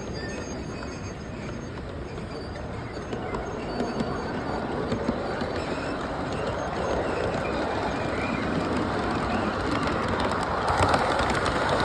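Large-scale model freight train's boxcars rolling along the track, a steady clatter of wheels with many small clicks that grows louder through the clip, with a hiss building near the end.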